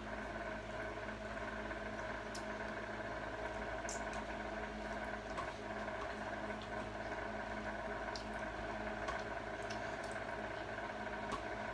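Soft eating sounds of pasta being slurped and chewed from a wooden fork, with a few faint clicks, over a steady room hum.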